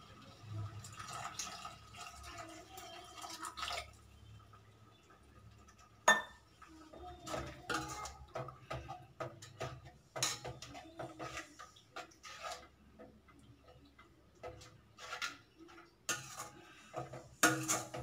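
Steel spatula scraping and clinking against a stainless steel kadai as it stirs a thick masala gravy with water just added. There are sharp knocks about six seconds in, about ten seconds in, and twice near the end.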